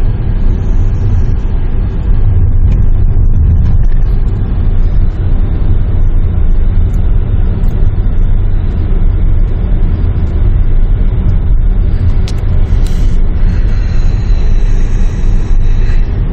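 Steady low rumble of a Volkswagen car in motion, heard from inside the cabin: engine and tyre road noise at an even, unhurried cruising speed.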